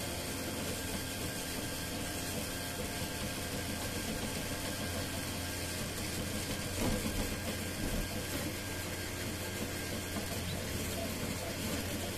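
Home-built 3D printer running, a steady mechanical hum made of several steady tones from its fans and motors, swelling slightly about halfway through.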